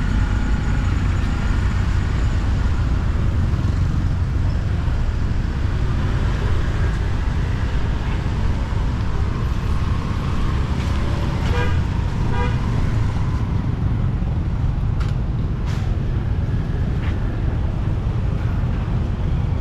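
Street traffic: a steady rumble of passing vehicles, with a short horn toot about halfway through.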